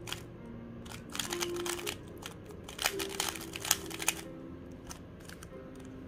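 Fast plastic clicking of a MoYu RS3M speedcube's layers being turned, in two quick runs about a second in and again around three seconds in, over quiet background music.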